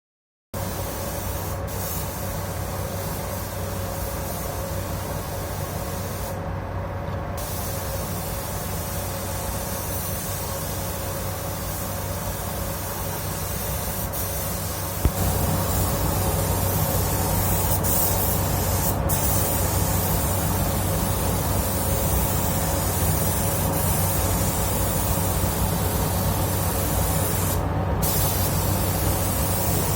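Compressed-air paint spray gun hissing steadily as it sprays paint, the hiss cutting out briefly twice. A steady low hum runs underneath, and everything gets louder about halfway through.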